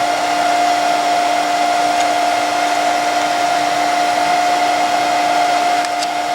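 Electric air blower feeding a brake drum forge, running steadily: an even rush of air with a steady whine.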